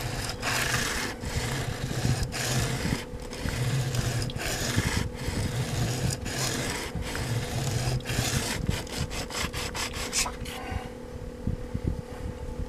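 The flat inside face of a scissor blade scraping back and forth on a wet coarse sharpening stone, about one stroke a second, getting quicker near the end before stopping about ten and a half seconds in. A steady low hum runs underneath.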